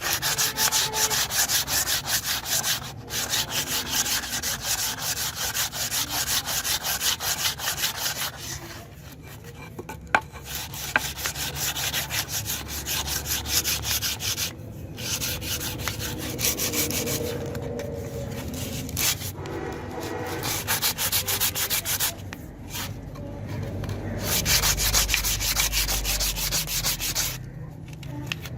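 Sandpaper rubbed quickly back and forth on a wooden hammer handle, in runs of rapid even strokes broken by several short pauses.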